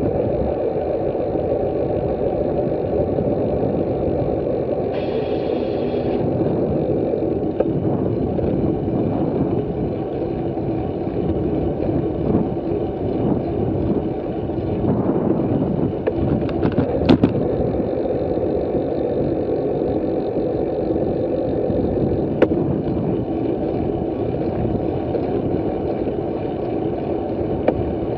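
Wind rushing over the microphone of a camera on a bicycle moving at about 24 km/h, mixed with road and tyre rumble. A couple of sharp clicks come a little past halfway and again about three quarters of the way through.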